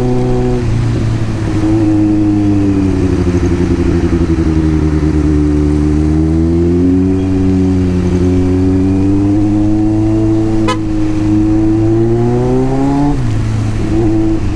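Kawasaki Z900 inline-four engine running on the move, its pitch rising and falling with the throttle, with a sudden drop in revs at a gear change about half a second in and another near the end.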